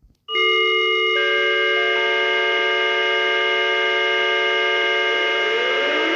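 Loud electronic alarm drone in the manner of a fake emergency-alert tone: a dissonant chord of steady tones that starts suddenly after a brief silence. More tones join over the first two seconds, and a rising glide comes in near the end.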